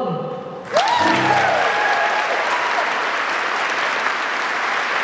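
Audience applause breaks out suddenly under a second in, as the choir's last sung note dies away, with a long cheer over the first two seconds; the clapping then carries on steadily.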